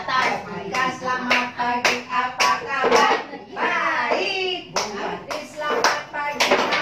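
Rhythmic hand-clapping, about two claps a second, with voices singing along.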